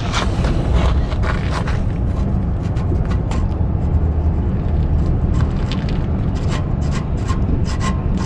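Tool on the RV water heater's anode rod as it is unscrewed from the tank: irregular metal clicks and scraping over a steady low rumble.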